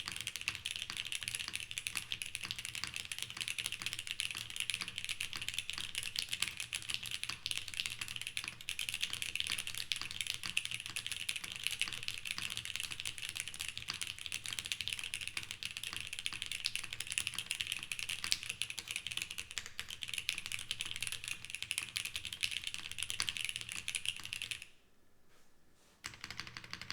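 Continuous rapid typing on a Monokei Hiro mechanical keyboard with Gateron CJ linear switches on a gasket-mounted polycarbonate plate. Near the end the keystrokes stop for about a second and a half, then a few more follow.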